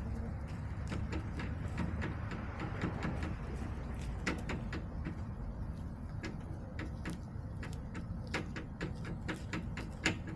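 Backyard hens pecking, making irregular sharp taps and clicks against hard coop surfaces, over a steady low rumble.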